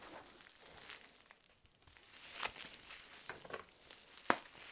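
Plastic packaging crinkling and rustling as it is handled, with scattered small clicks and one sharper click near the end.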